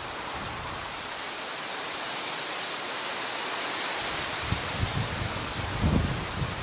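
Steady rushing noise of flowing stream water. Low thumps hit the microphone from about four and a half seconds in, the strongest near the end.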